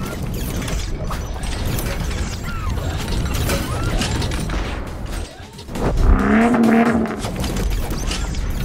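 Sound-design effects of mechanical parts: rapid clicking, ratcheting and clattering like gears and metal pieces locking together, with a louder pitched hum swelling about six seconds in.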